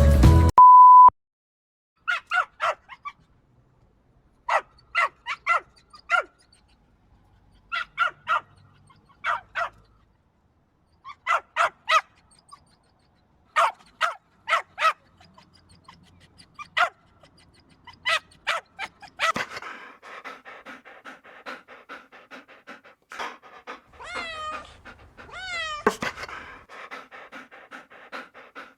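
A short steady beep, then a dog barking in quick runs of two to four barks, a run every second or two. In the last third the barks give way to a busier background with a few drawn-out, wavering whines.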